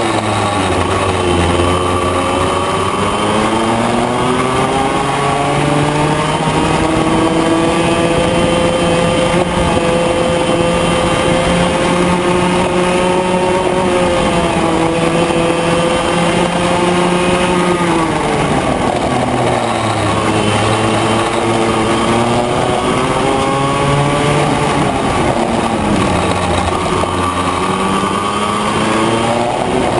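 Yamaha KT100J single-cylinder two-stroke kart engine at racing revs, heard from on board the kart. Its pitch climbs for much of the first half and falls sharply about eighteen seconds in. It then climbs again, with a shorter dip near the end.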